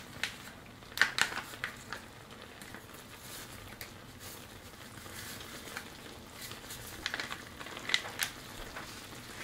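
Paper sauce-mix pouch from a Hamburger Helper box crinkling and crackling in short bursts as it is handled, opened and shaken out over a skillet.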